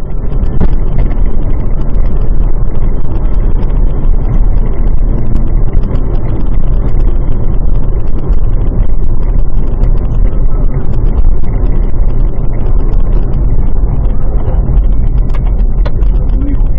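Steady loud rumble of a moving car, engine and road noise as heard through a dash camera's microphone, with a few faint clicks near the end.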